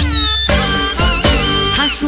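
Background music: a melody with vibrato over a bass line and a steady beat of about two thumps a second.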